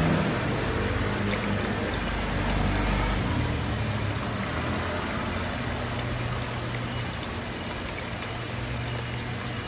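Water steadily pouring and trickling down the tiers of a ceramic three-tier rock tabletop fountain, over a low steady hum.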